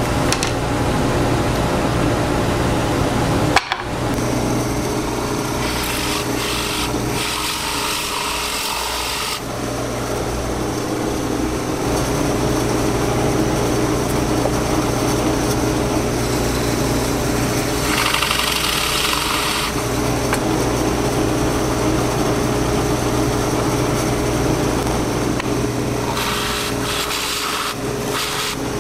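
Drill press running steadily with a Forstner bit boring a bearing pocket into a wooden plate. There are two stretches of louder cutting noise, a few seconds in and again about two-thirds through.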